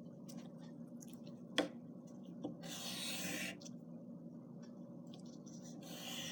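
Drawing on paper: scratchy strokes, the longest lasting about a second near the middle, with a sharp click about a second and a half in.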